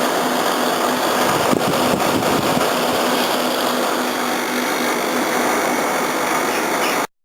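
Air conditioning unit running on cool, its fan blowing and compressor running with a steady hum. It cuts off abruptly near the end.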